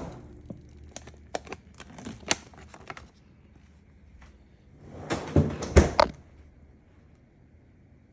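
Scattered light clicks and knocks of objects being handled for about three seconds, then a louder cluster of knocks about five seconds in.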